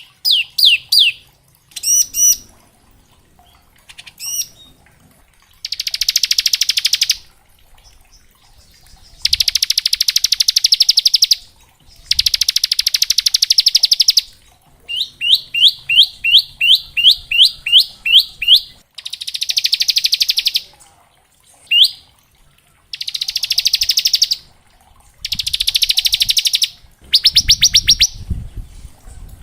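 Bar-winged prinia (ciblek) singing: loud, very fast rattling trills of one to two seconds each, the 'ngebren' song, repeated with short pauses and broken once by a quick run of upward-sweeping chirps.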